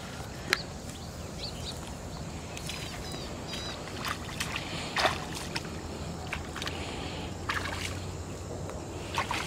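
Footsteps wading through shallow muddy water, each step a short splash, the loudest about halfway through.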